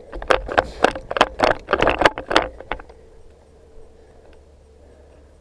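Rapid, uneven knocks and rattles of a player's footsteps and jostling gear as he moves off, about four or five a second for roughly three seconds, then dying away.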